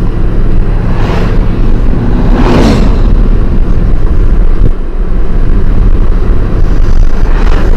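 A car driving along a paved road, heard from inside: a steady low rumble of road and engine noise, with three short louder rushes of air or tyre hiss swelling and fading.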